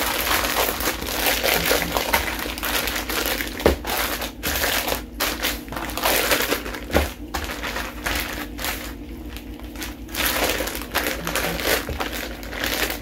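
Plastic zip-top freezer bag crinkling and rustling as hands knead the chicken thighs and marinade inside it and squeeze the air out, with a couple of soft thumps.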